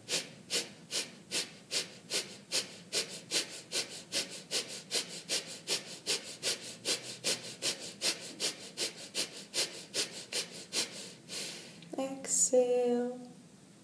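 Kapalabhati breathing: about thirty short, forceful exhalations through the nose, one pumped out by the abdomen every 0.4 s or so, with the inhalations passive and barely heard. The pumping stops about a second before the end, and is followed by a louder sharp breath and a brief sound of the woman's voice.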